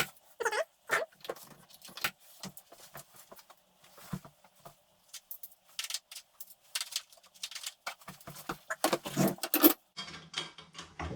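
Small metal parts clinking and rattling as they are handled: nuts, bolts and steel angle pieces for a bike truing stand being fitted together, with a louder clatter about nine seconds in.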